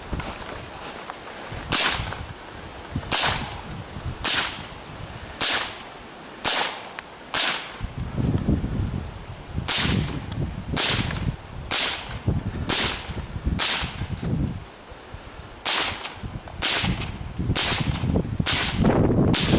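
A .22 LR rifle firing a long string of sharp, single cracks, about one shot a second with a couple of brief pauses, as targets are engaged against the clock.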